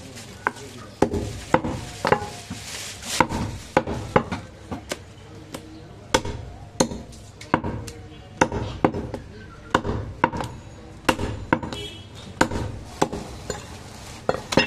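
Heavy meat cleaver chopping bone-in goat meat on a thick wooden chopping block: a run of sharp chops, roughly one to two a second, with an irregular rhythm.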